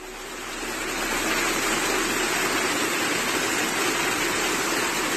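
Heavy rain storm drumming on the roof, with water pouring through the ceiling into a flooded room. It is a dense, steady rushing that swells over the first second.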